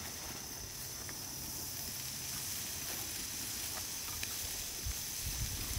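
Insects trilling steadily on one high note. Beneath it is a soft hiss of steaks and kabobs cooking over an open-fire grill, with a couple of faint crackles.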